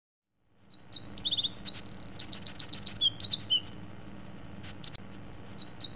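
Songbirds chirping and trilling in quick, high-pitched phrases, starting about half a second in.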